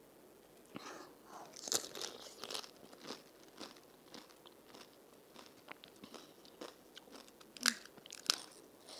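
Close-up crunching and chewing of crisp panipuri (phuchka) shells, densest in the first few seconds and then softer. Two sharp crunches come near the end.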